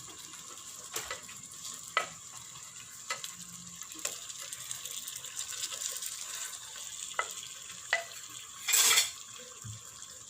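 Tomato masala sizzling in a pot as pieces of fried chicken are put in one by one, with several light knocks against the pot. A short, louder rush of sizzling noise about nine seconds in.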